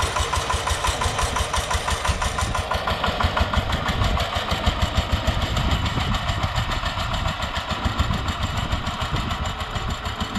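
VST Shakti 130 DI power tiller's single-cylinder diesel engine running steadily with a rapid, even thumping as it pulls a cultivator through the soil. It grows a little fainter toward the end as it moves away.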